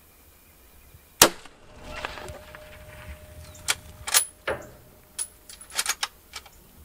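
A single loud hunting-rifle shot about a second in, followed by a scatter of smaller sharp clicks and knocks over the next few seconds.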